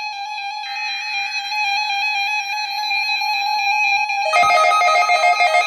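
NOAA weather radio receivers sounding their alert tones for a Required Weekly Test. One radio holds a steady electronic tone while a warbling data-burst sound comes and goes underneath. About four seconds in, more radios join with louder pulsing beeps.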